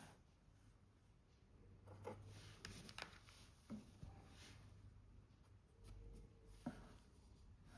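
Faint sounds of drawing on paper: light scratching strokes and a few small clicks and taps over a low room hum.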